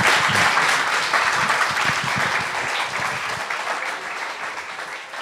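Audience applauding, the clapping gradually fading away.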